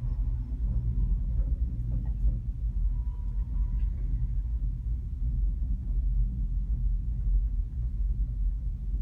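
Steady low rumble inside a gondola cabin travelling along its cable line.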